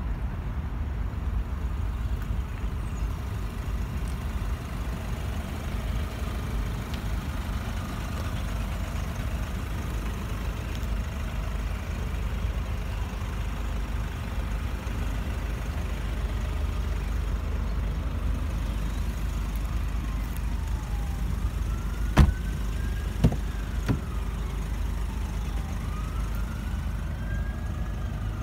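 Steady low outdoor rumble, with a siren wailing up and down twice near the end and three sharp clicks shortly before the wail.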